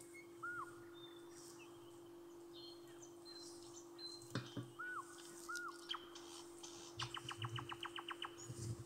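Faint bird chirps and short whistles, ending in a quick even trill of about eight notes a second, over a steady hum. There is a single soft knock about four and a half seconds in, likely the mixing spoon against the metal bowl.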